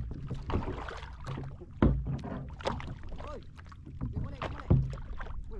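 Knocks and handling rattles on a fishing kayak, with two sharp thumps about two and five seconds in.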